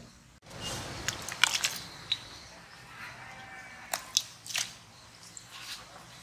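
Hot oil sizzling in an iron kadai as raw gulab jamun dough balls are tipped in from a steel ladle, with several sharp clicks and light splashes as they go in.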